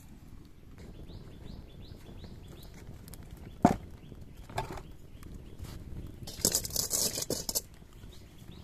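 Open wood fire burning under a stone hearth, with birds chirping faintly and a single sharp crack a little under four seconds in. Around six and a half seconds in, a metal kadai is set down on the stones over the fire with a scraping clatter lasting about a second.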